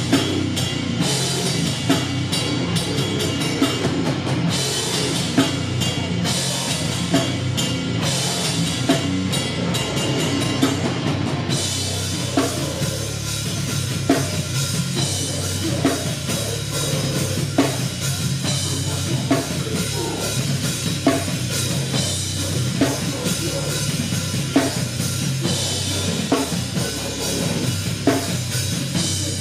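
Loud live rock band with heavy drums and distorted guitar. About twelve seconds in, the crashing cymbals and high guitar wash drop out and the song carries on with mainly drums and bass.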